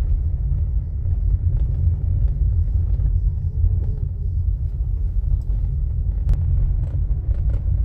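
Steady low rumble of a 2020 Chevrolet Onix rolling slowly at about 10 km/h, with a few faint sharp knocks in the second half.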